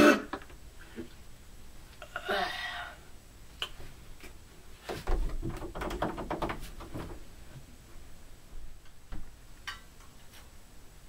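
Someone moving about a small room: scattered soft knocks and clicks, a brief rustle about two seconds in, and a cluster of thuds and rustling around five to seven seconds in.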